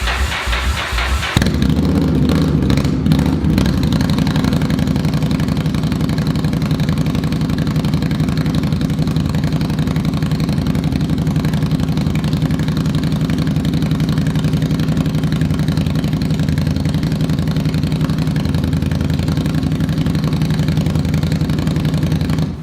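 2016 Indian Scout's V-twin running at idle through Trask slip-on mufflers: a loud, deep rumble. The sound is brighter for a little over a second, then settles into a steady idle.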